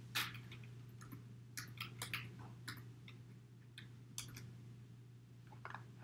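Computer keyboard keys clicking in irregular, short runs of typing, over a steady low electrical hum.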